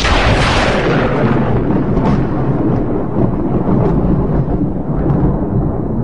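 Thunderclap: a sharp crack at the very start that fades over a second or two into a long, deep rolling rumble.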